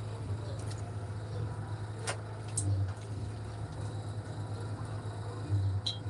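Steady low hum under a few short, sharp clicks and taps from hands and a spoon working in stainless-steel trays and a bowl of breadcrumbs; the loudest click comes about two seconds in.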